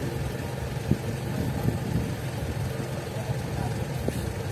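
Vehicle engine idling steadily with a low hum, with a few short knocks about a second in, near two seconds and near the end.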